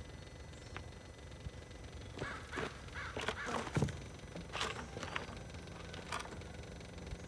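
Faint short, harsh calls from an animal, several in a row with gaps between them, over low background noise.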